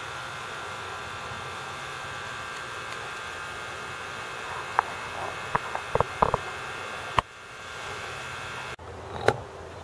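Steady machinery hum with several fixed tones. A few short, sharp clicks or taps come in a cluster around the middle, and the background drops abruptly after them.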